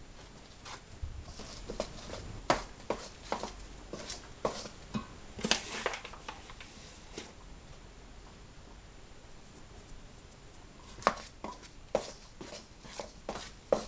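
Metal spoon stirring flour and water into dumpling dough in a stainless steel bowl: irregular scrapes and clinks of the spoon against the bowl, easing off for a few seconds past the middle, then picking up again near the end.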